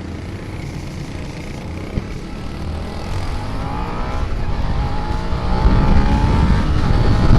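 Suzuki SV650's V-twin engine under hard acceleration, rising in pitch and growing steadily louder as the motorcycle speeds up to about 131 km/h.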